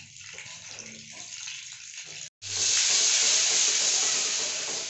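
Butter melting and sizzling in hot oil in a kadai. The sizzle is soft at first, then after a brief break about two seconds in, loud and steady as the butter foams.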